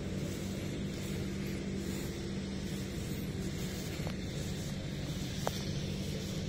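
Motorised grass trimmer running steadily at a constant high speed, a continuous engine hum.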